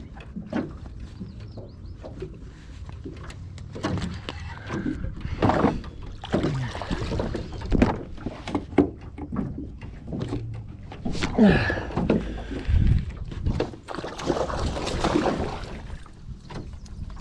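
Hooked northern pike thrashing and splashing at the surface beside a small boat, with repeated sharp knocks and bumps in the boat during the fight. The rushing splashes come in surges, the longest near the end.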